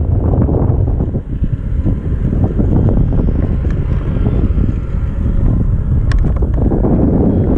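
Heavy wind buffeting the microphone, with a faint steady whine from an electric ducted fan on a Parrot Disco fixed-wing drone in flight. A couple of sharp clicks come about six seconds in.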